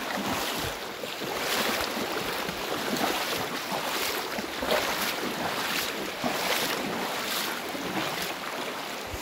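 Regular splashing steps, roughly one every three-quarters of a second, wading through a shallow stony stream over the steady rush of the running water.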